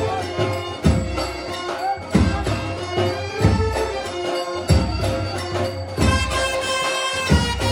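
Marathi devotional bhajan music: a deep drum beats about every 1.3 seconds under steady jingling metallic percussion and a held tone, with voices singing.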